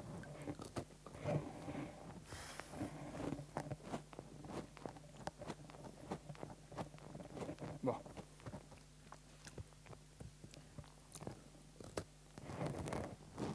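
A man chewing and biting crunchy food close to a head-worn microphone: irregular crunches and small clicks, with faint crockery sounds.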